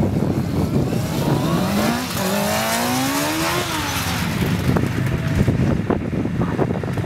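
Sport motorcycle engine revving up, its pitch rising steadily for about two seconds, then dropping off quickly. A rough, crackly low rumble runs underneath the whole time.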